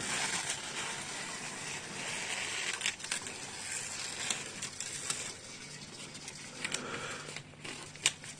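Protective adhesive tape being peeled off a knife blade by hand: a rustling, crackling tear of the adhesive, with a few sharp clicks near the end.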